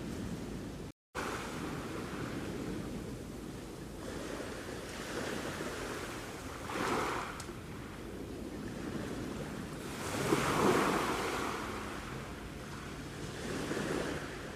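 Sea waves washing onto the shore in a steady rush, swelling louder twice, about seven and about ten seconds in. The sound cuts out for a split second about a second in.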